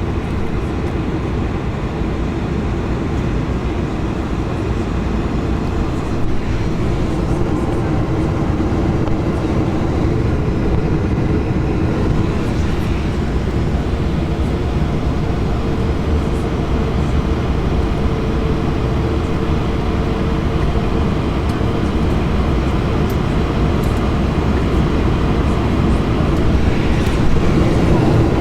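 Airbus A220-300 cabin noise in flight: a steady roar of airflow and engines over a low rumble, with a steady hum. It grows slightly louder toward the end.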